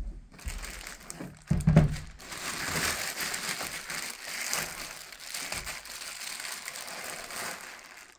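Thin clear plastic bag crinkling as it is pulled and torn off a boxed 12 V lithium battery. Two heavy thumps come in the first two seconds, the second about a second and a half in, before the crinkling runs on.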